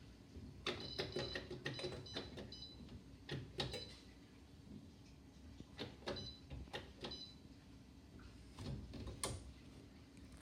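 Electrolux Ecologic 12 kg washing machine being operated: groups of clicks and knocks, several with short high beeps, over a low steady hum.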